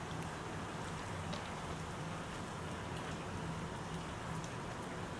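Steady heavy rain falling and hitting surfaces, with scattered drops ticking, over a steady low hum.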